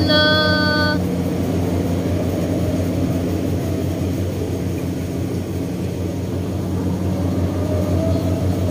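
A motor engine running steadily with an even low hum. At the very start a clear pitched tone is held for about a second.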